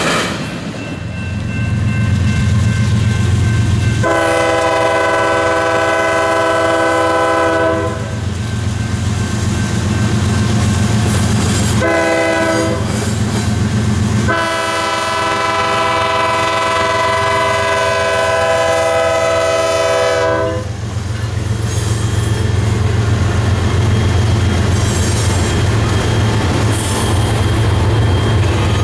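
Locomotive air horn sounding a chord of several tones: a long blast about four seconds in, a short one, then another long blast, over the steady low rumble of a passing train.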